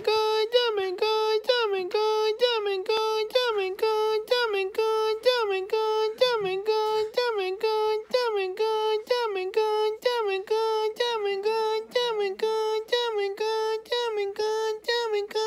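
A high-pitched voice singing or chanting quick syllables, about three a second, almost all on one note, each syllable dipping in pitch, with sharp clicks between syllables.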